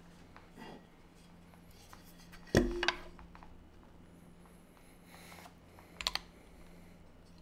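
A pause in typing: one dull thump with a brief ring about two and a half seconds in, then a few clicks of a Tofu 60 mechanical keyboard with lubed and filmed Everglide Dark Jade switches on a brass plate, about six seconds in.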